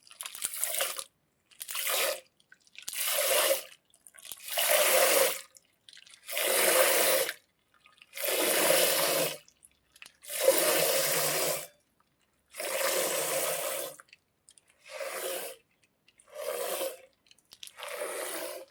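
Foley for milking a cow: about eleven separate squirts of liquid hissing into a container, one after another about every one and a half to two seconds. The squirts are longest and loudest in the middle and grow shorter and quieter near the end.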